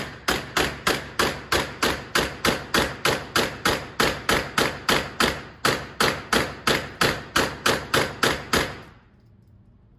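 Draco AK-pattern pistol firing rapid semi-automatic shots, evenly spaced at about three a second, each followed by a short echo off the range's walls. About two dozen shots run together as a magazine is emptied, then the firing stops near the end.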